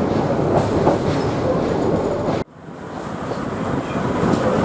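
QR 2000 class rail motor running along the track, with steady wheel-on-rail and engine noise. The sound cuts out abruptly about halfway through and fades back up: an edit in the recording.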